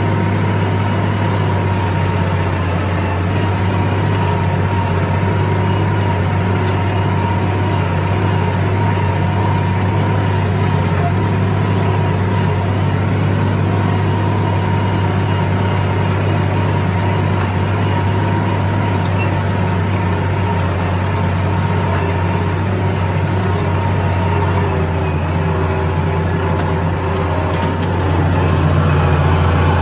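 Farm tractor engine running steadily at constant speed while towing a disc harrow, a low, even drone that gets a little louder near the end.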